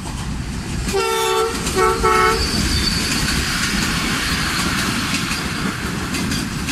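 Train horn sounding one blast about a second in, then two short blasts, over the steady rumble and wheel clatter of a passenger train's coaches running past.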